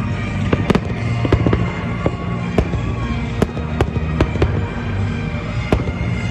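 Fireworks going off overhead: an irregular run of sharp bangs, about a dozen in a few seconds, some in quick pairs, over music.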